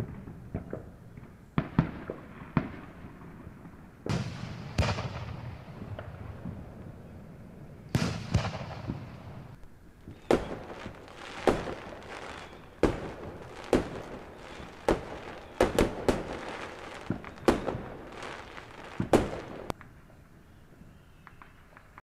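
Fireworks going off in a string of sharp bangs, each followed by a short echoing tail. A few bangs come at first, then about one a second from about ten seconds in, stopping a couple of seconds before the end.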